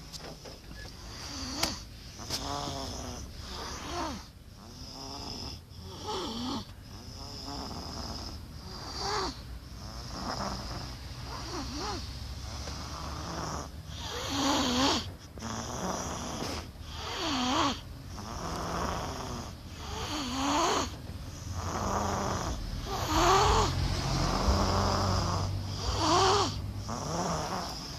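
Young child snoring in sleep, regular snores about every second and a half, over the low steady hum of the car.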